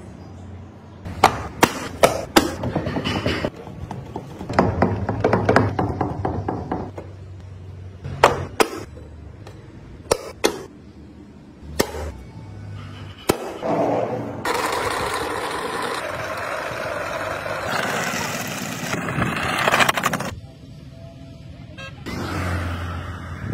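Sharp clicks and knocks of the wooden parts of a hand-carved model car being handled, then several seconds of steady rushing noise.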